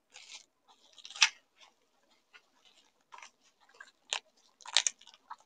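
Scissors snipping and plastic bubble wrap crinkling and rustling as it is cut and pulled off a small ceramic piece. The sound comes in short irregular crackles, loudest about a second in and near the end.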